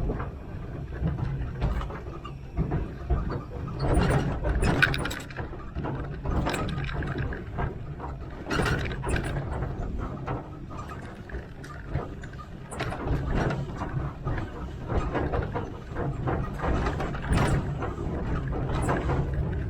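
1927 Vulcan 0-4-0T narrow-gauge steam locomotive running along the track: a steady low rumble with frequent, irregular clanks and knocks.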